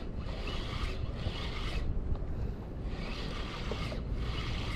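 KastKing Centron 3000 spinning reel being cranked in short spells with brief pauses, its gears and line roller whirring, as a jig is worked back through the water.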